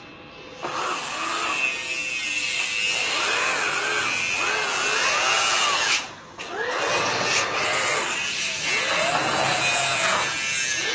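Small high-revving electric motor of a radio-controlled boat running with a steady whine. It starts just under a second in, cuts out briefly about six seconds in, then runs again.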